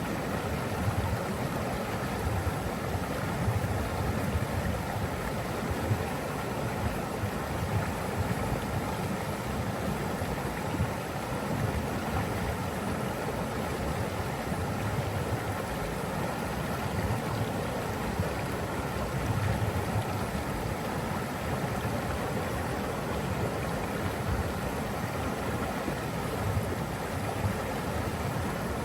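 Rushing water running steadily, a continuous even wash with a low rumble.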